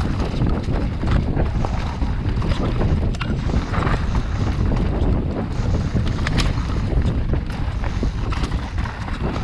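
Wind buffeting an action camera's microphone and tyres rumbling over a dirt trail during a fast mountain bike descent, with a few sharp clicks and rattles from the bike and trail.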